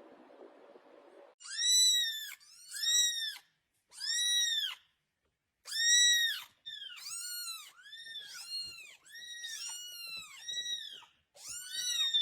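An animal making about ten short, high-pitched crying calls in quick succession, each rising then falling in pitch; the first few are the loudest.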